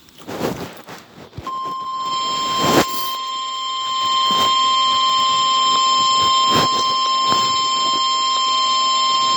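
Weather-radio warning alarm tone: a single steady tone near 1050 Hz that starts about a second and a half in and holds unbroken, signalling a warning about to be read. It is preceded by crackling static, and a few sharp clicks cut through it.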